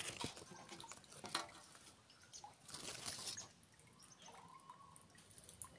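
Faint rustling and light ticks of leaves brushing against a handheld phone as it is moved through the branches of a longan tree, with a denser rustle about three seconds in.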